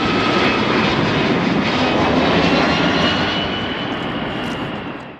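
Jet airliner landing: loud, steady engine noise on the runway just after touchdown, easing off after about three seconds, then cutting off abruptly.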